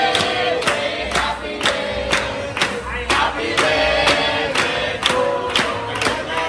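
Background music: a song with group vocals over a steady, quick beat and bass.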